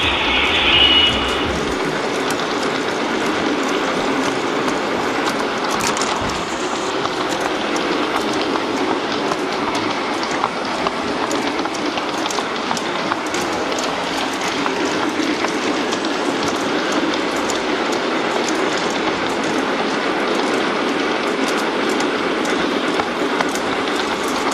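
Large-scale model train running on brass track, its motor and gears whirring and its wheels clicking steadily over the rails. There is a short high-pitched tone about a second in.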